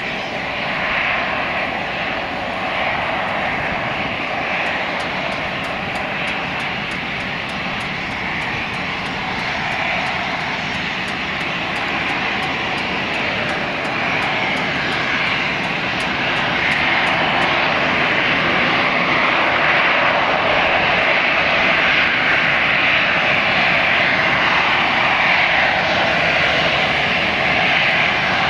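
Jet engines of an easyJet Airbus A320-family airliner running at taxi power as it rolls along the taxiway, a steady jet rush. It grows a little louder past the middle.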